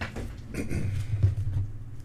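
Dull low bumps and a few light clicks of handling close to the microphone, loudest about a second in.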